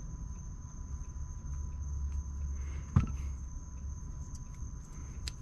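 A single sharp click about three seconds in as a plastic push-in trim retainer is pressed into place, over low handling rumble and a steady high-pitched whine.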